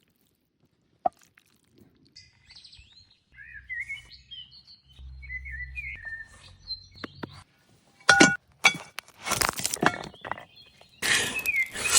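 Birds chirping in short gliding calls, followed by several loud crackling, crunching strokes in the last few seconds.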